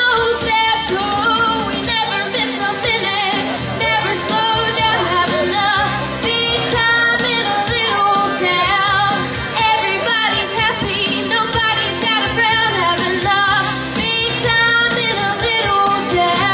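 A woman singing a pop-style song live into a microphone, over instrumental accompaniment.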